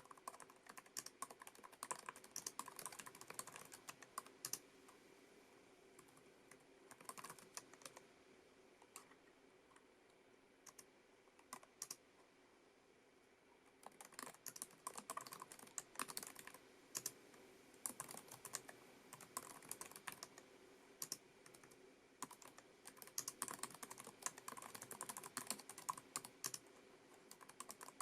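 Typing on a Lenovo ThinkPad TrackPoint Keyboard II, its low-profile scissor-switch keys clicking in quick runs. The typing pauses to a few scattered taps for several seconds about a third of the way through, then resumes.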